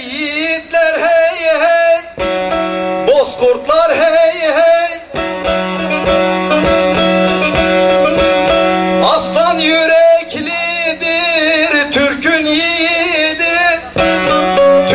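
Turkish folk song (türkü): a man sings long, ornamented, wavering notes over a plucked long-necked lute, the bağlama (saz), with steadier instrumental passages between the vocal lines.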